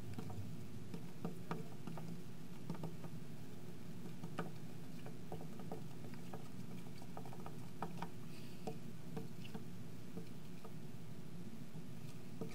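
Marker writing on a glass lightboard: faint, irregular little taps and scratches of the tip against the glass, over a steady low room hum.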